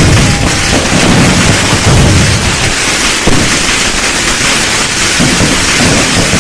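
A dense barrage of fireworks and firecrackers: countless overlapping bangs and crackles merge into a steady, loud din with a low rumble underneath and a few sharper bangs.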